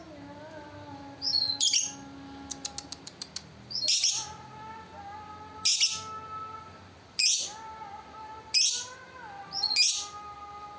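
Lovebird giving a series of short, sharp, high-pitched calls, about one every second and a half, with a quick run of clicks about three seconds in. Fainter steady whistled tones sound underneath.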